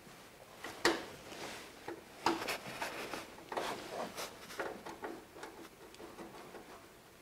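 Hands fitting a metal brake line's union nut into a brake hose fitting by hand: small clicks, taps and rubbing of metal parts. The sharpest click comes about a second in, and the clicks thin out after about five seconds.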